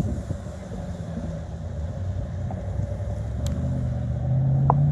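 Highway traffic: a low road rumble, then a passing vehicle's engine growing louder in the second half, its pitch rising slightly.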